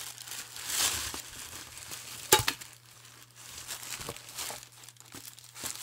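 Rustling and crinkling of black packing wrap being pulled out of a cardboard box, with one sharp knock about two seconds in.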